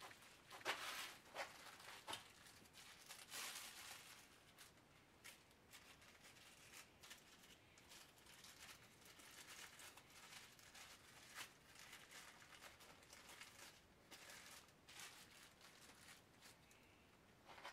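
Faint crinkling and rustling of a white sheet handled by hand, with scattered light clicks and taps.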